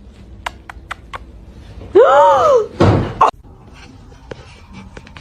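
A few light clicks, then about two seconds in a short call that rises and falls in pitch, followed by a loud thump like a door slamming.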